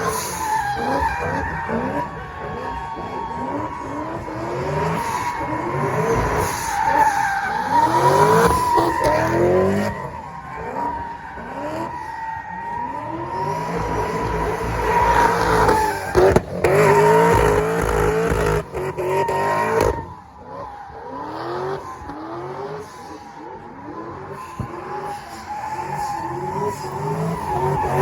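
Cars sliding at the limit of grip, tires squealing in a steady high note while the engines rev up again and again. The noise eases briefly about twenty seconds in.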